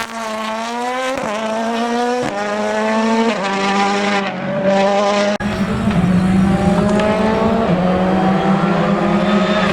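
Rally car engine accelerating hard, its pitch climbing and dropping back with about four quick upshifts. About halfway through it turns suddenly louder and deeper as the car comes close past.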